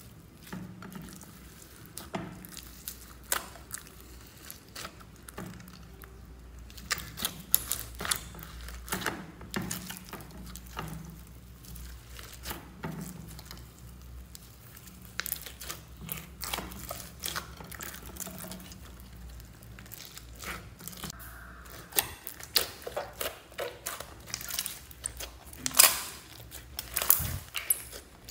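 Hands squishing, stretching and pressing slime mixed with foam beads and clay, making scattered wet clicks, pops and crackles that come more often toward the end.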